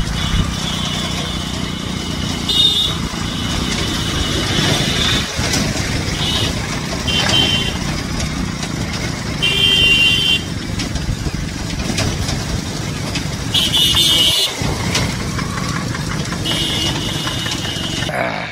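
Motorcycle engine running steadily while it tows a broken-down motorcycle on a rope, heard from the towed bike along with road noise. Brief high-pitched sounds come and go several times.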